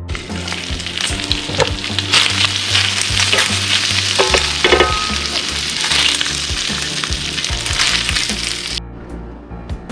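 Food sizzling and crackling as it fries in a pan, cutting off abruptly near the end.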